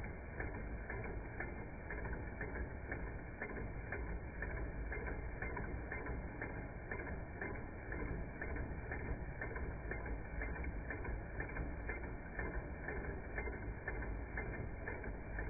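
Carette 105/5 tin toy steam engine running, turning its string-belt drive and a tin sawyer figure: a steady, even mechanical clatter with a regular click roughly twice a second, slowed down and deep in pitch.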